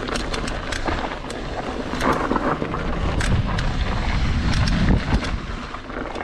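Mountain bike running down a rough dirt trail: a steady rush of wind on the microphone and a rumble from the tyres, with frequent sharp clicks and rattles from the bike over the bumps.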